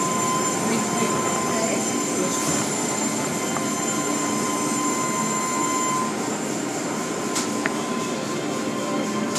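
Automatic car wash tunnel running, heard through a viewing window: spinning cloth brushes scrubbing and water spray making a steady churning noise, with a thin steady whine that drops out about six seconds in.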